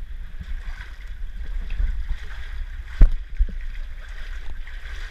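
Shallow seawater sloshing and splashing around wading legs, over a steady low rumble, with a few knocks, the loudest about three seconds in.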